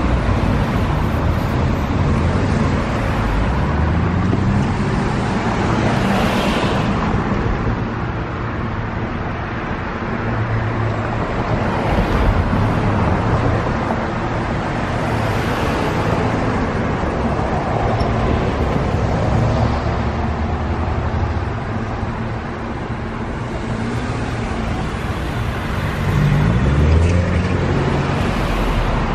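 Road traffic passing close by one after another, cars and SUVs with tyre noise and engines, some rising in pitch as they pull away. The loudest pass comes near the end.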